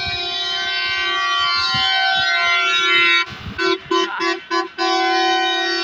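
Bus horn sounding one long held note, broken a little past the middle by a run of about four short blasts, then held again.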